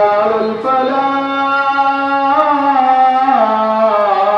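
A solo voice singing or chanting in long, drawn-out notes that slide slowly between pitches, each held for a second or more.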